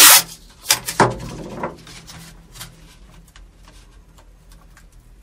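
Masking tape being pulled off the roll and torn. There are quick ripping sounds in the first two seconds, then faint rustling and light taps as the strips are pressed down.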